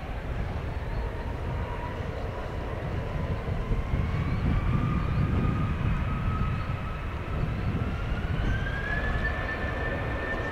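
Jet airliner engines spooling up for the takeoff roll. A whine climbs slowly in pitch over a deep, steady rumble and levels off near the end.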